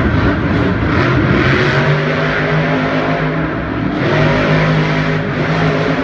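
Monster truck engine running loud and revving: its pitch climbs, then holds steady, with a short drop about four seconds in.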